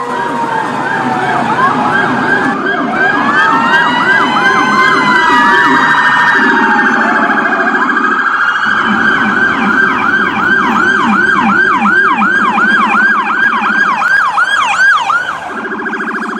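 Electronic emergency-vehicle siren sounding several tones at once: slow rising and falling wails in the first half, then a rapid yelp of falling sweeps about twice a second, over a lower, rougher tone that drops out briefly a few times.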